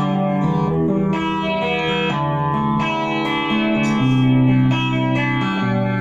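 Fender electric guitar played through a chorus pedal and a compressor pedal into a Hughes & Kettner amp: a run of sustained single notes and chords, each note ringing on evenly.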